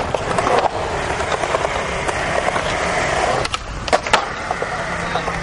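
Skateboard wheels rolling on concrete, then, about three and a half seconds in, sharp clacks of the board popping and landing a trick, after which the rolling picks up again.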